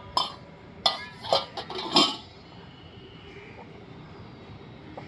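Drinking glasses clinking and knocking as they are handled, with several sharp clinks close together in the first two seconds. After that only a faint steady background noise remains.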